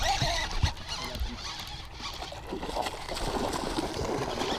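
Hooked bowfin thrashing and splashing at the water's surface close to the boat, over a steady low rumble, with a couple of sharp knocks about a second in and more splashing in the second half.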